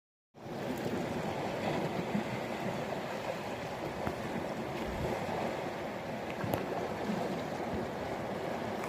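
Sea water washing steadily against the shore, with a few faint clicks now and then.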